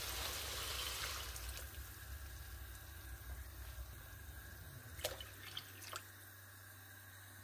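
Masala cooking in a pot on the stove: a watery hiss that fades away over the first second or so, then three light clicks near the end.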